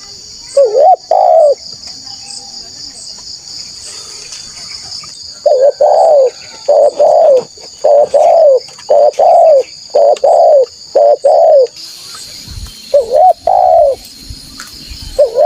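Spotted dove cooing: repeated two-note coo phrases, each a short rising note followed by a longer arched one. There is a pair about half a second in, a run of about seven phrases through the middle, and more near the end.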